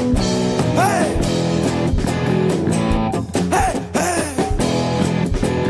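Rock music: electric and bass guitars over a steady beat, with notes bending up and down in pitch.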